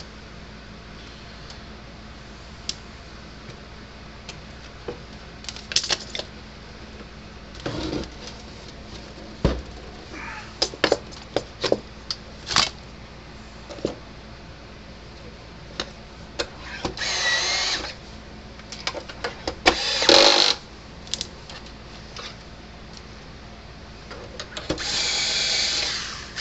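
Power drill-driver running in three short bursts, driving the screws that fasten a fence charger's case back on, with clicks and knocks of parts and tools being handled in between.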